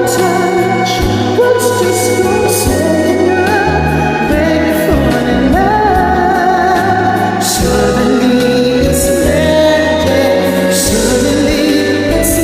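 Pop ballad music with singing over a steady bass and cymbal hits.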